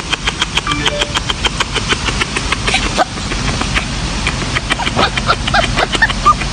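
Fast, even clicking at about five a second, then Lhasa Apso puppies starting to whimper and yip with short rising-and-falling cries over the last second or two.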